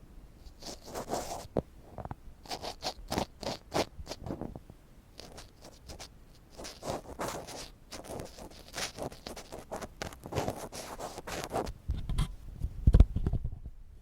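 Ear pick scratching and scraping close against the microphone in irregular runs of quick strokes. A loud low bump about a second before the end.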